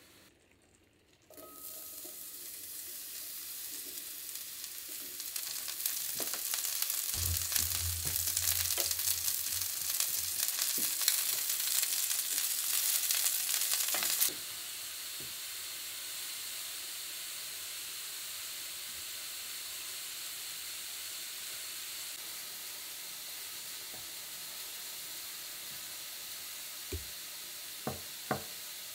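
Shimeji mushrooms sizzling in a frying pan as they are stirred with a wooden spatula, with small scraping clicks. The sizzle is loudest in the first half, then drops suddenly to a quieter steady sizzle about halfway through. A few knife taps on a wooden cutting board come near the end.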